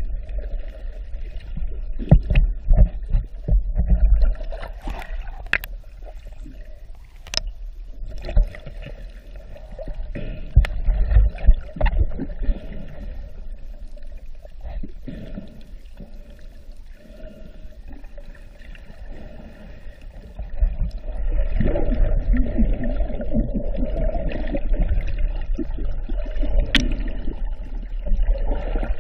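Muffled water noise heard underwater, with a low rumble and a few sharp clicks, growing louder about three-quarters of the way through.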